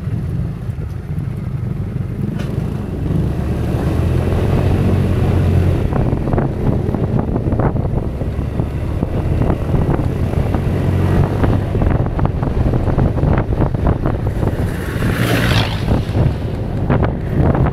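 Kymco Xtown 300i maxi scooter's single-cylinder engine running under load on a steep uphill climb, heard beneath wind buffeting the microphone. A brief louder hiss rises and falls near the end.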